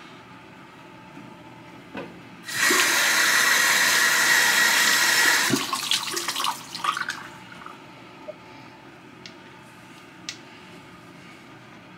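Bathroom sink tap running for about three seconds, then water splashing and dripping for a second or so after it stops.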